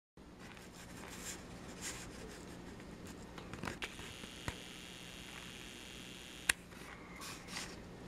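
Indoor room tone with a steady low hum, broken by a few sharp clicks and taps, the sharpest about six and a half seconds in.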